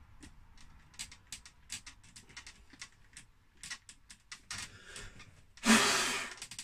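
Small screwdriver working the keyboard's retaining screws, a run of light clicks and scrapes. Near the end comes one loud, short exhale close to the microphone.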